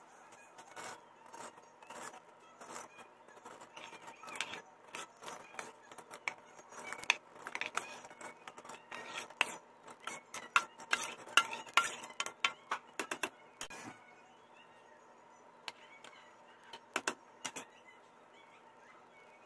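A steel spoon scraping and clinking against a steel plate as washed rice is pushed off it into a pressure cooker: a run of quick scrapes and taps, loudest about ten to twelve seconds in, stopping about fourteen seconds in, with a few single clinks after.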